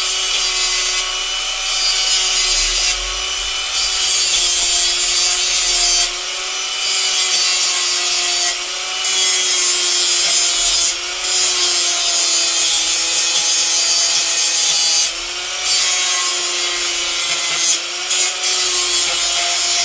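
Angle grinder running with a steady whine, its disc grinding steel angle iron down to clean bare metal ready for welding. The grinding hiss drops out briefly several times as the disc comes off the steel, while the motor whine carries on.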